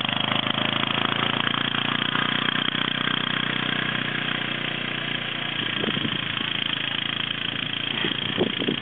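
An engine running steadily with a rapid, even firing pulse, easing off a little after about halfway.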